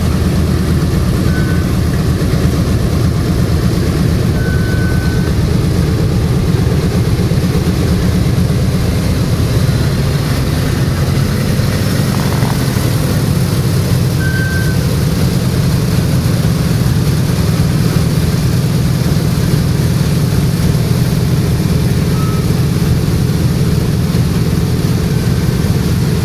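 Piston engines of a World War II warbird running steadily, a loud, low, even drone.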